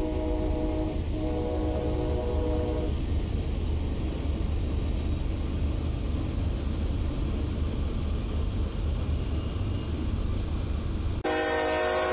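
Diesel locomotive's multi-chime air horn sounding. It breaks off briefly about a second in, then sounds again until about three seconds in. The steady low rumble of a passing train follows. Near the end a Norfolk Southern locomotive's horn chord starts abruptly.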